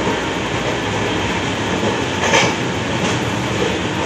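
Passenger train coach running on the rails, heard from inside the coach: a steady rumble of wheels and carriage, with a brief sharper clatter a little past halfway.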